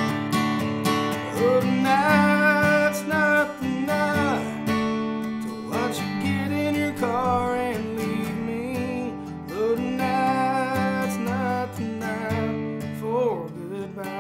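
Steel-string acoustic guitar strummed in a steady chord pattern, with a voice singing held, wavering melodic phrases over it three or four times.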